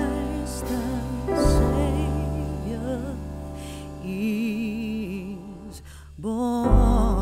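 Background music: a slow melody in long, wavering notes with vibrato over a low sustained bass, with new phrases coming in about a second in and again near the end.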